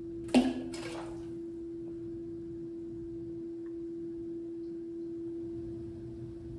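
Whirlpool bathtub's equipment humming in one steady tone after the water rush has stopped. There is a sharp click about a third of a second in and a fainter one just before a second.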